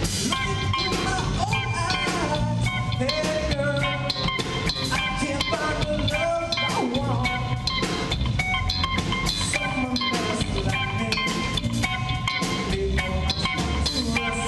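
Live rock band playing an original song: a Telecaster-style electric guitar over a drum kit, with bending, gliding guitar lines.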